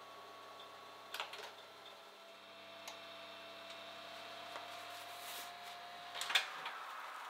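Panasonic Bistro oven running with a faint steady hum, with a few light clicks. A louder cluster of clicks comes a little over six seconds in, as the hum cuts off.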